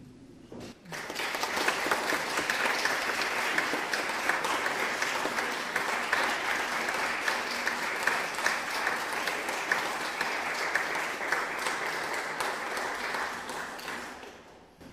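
Concert audience applauding: dense clapping starts about a second in, holds steady and dies away near the end.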